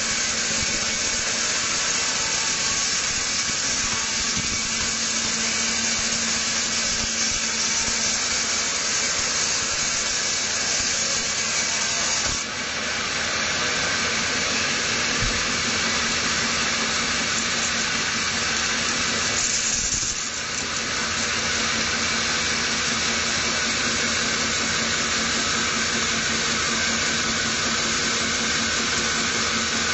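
Band sawmill cutting lengthwise through a squared teak log: a steady rushing noise from the blade in the wood over a constant low motor hum, easing briefly twice in the middle.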